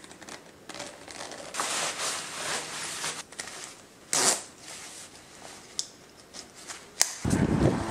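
Clothing rustling as zippers on a jacket and a black suit are done up, with a short quick zip about halfway through. A plastic side-release buckle then snaps shut with a sharp click. Near the end a louder low rumbling noise takes over.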